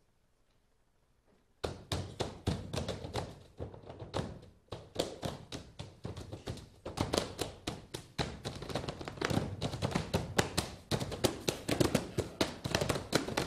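Malambo zapateo danced a cappella by four men in rawhide botas de potro: quick runs of stamping and tapping of heels and soles on the stage floor, with short breaks between runs. It starts after about a second and a half of silence.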